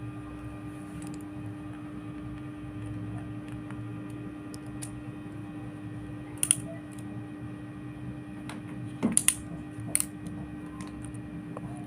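A few short clicks and clacks from an RJ45 crimping tool and connector being handled and squeezed onto a LAN cable, over a steady low hum.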